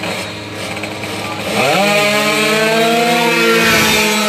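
Two-stroke Honda Dio drag scooters revving hard as they launch: about one and a half seconds in the engines jump to full throttle, the pitch climbing quickly and then holding high and loud.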